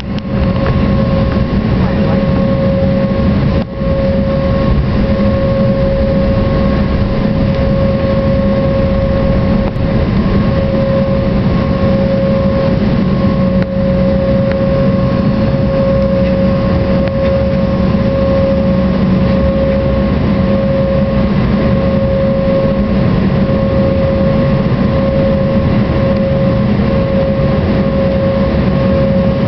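Cabin noise inside an Embraer jet taxiing: the turbofan engines at low thrust give a steady whine over a low rumble, with no spool-up.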